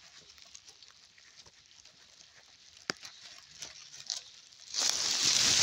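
Bundle of freshly cut fodder grass rustling against the phone as it is carried, with faint scrapes and ticks, then a loud rustle lasting about a second near the end.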